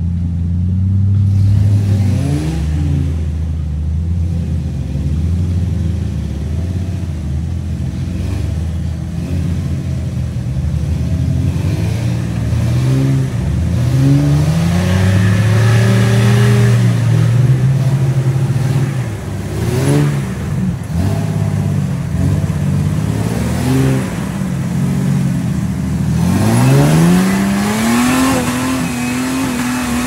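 Lifted Jeep Wrangler's engine revving in repeated bursts as it crawls up a steep, rutted rock-and-clay trail. The revs rise and fall over and over, with a few quick blips in the middle and a long rev held high near the end.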